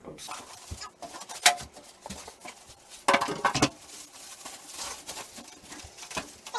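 Rigid foam packing squeaking and creaking as it is pulled off a PC case, with handling clicks and light knocks; the loudest squeaks come about one and a half seconds in and again around three seconds in.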